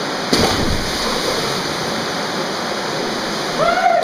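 A person jumping into a gorge pool lands with a loud splash about a third of a second in, over the steady rush of river water. Near the end a voice calls out briefly.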